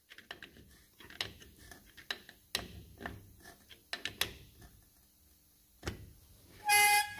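Light metallic clicks and knocks from a long spanner working the front hub nut of a Range Rover Classic, nipping up the nut that sets the taper wheel bearings. Near the end comes a short, loud ringing note.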